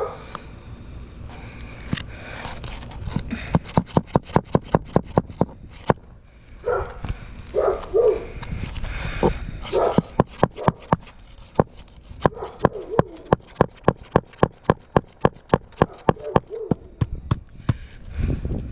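Hammer driving roofing nails into a replacement shingle: runs of quick strikes, about four a second. A dog barks several times in between.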